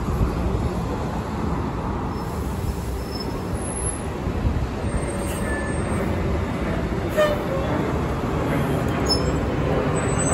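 City transit bus approaching and drawing up alongside, its engine running with a steady low rumble, with a brief squeak about seven seconds in.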